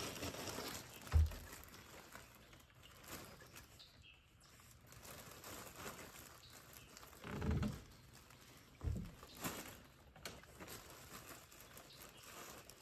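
Quiet handling noise from rockwool starter cubes being set out on the plastic bucket lid of a hydroponic tower: light rustling and clicks, with three soft low thumps, about a second in, near the middle and soon after.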